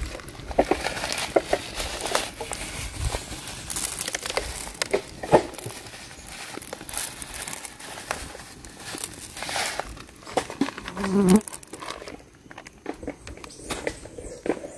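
Coarse rock salt sprinkled by hand onto a skewered beef brisket on a plastic cutting board: grains pattering irregularly onto the meat and board, with some crinkling of plastic.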